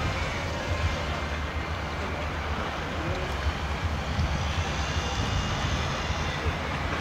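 Steady low rumble under an even outdoor background noise, with no single event standing out.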